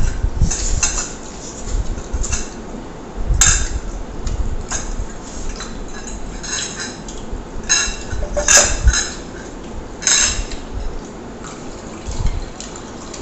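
Metal forks clinking and scraping on ceramic plates during a meal of noodles and fried chicken, in irregular clinks with a few sharper ones along the way, mixed with wet eating and noodle-slurping sounds.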